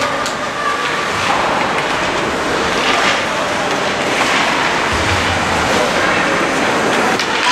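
Ice-rink crowd noise: a steady, loud din of many indistinct voices echoing in a large hall, with a few faint knocks.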